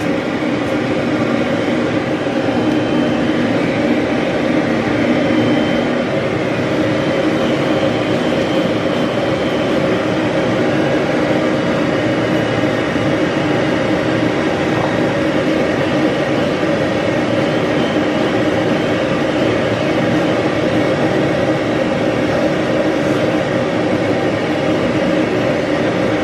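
Dog grooming blow dryer running steadily, air rushing from its hose with a constant whirring hum as a poodle puppy's coat is dried.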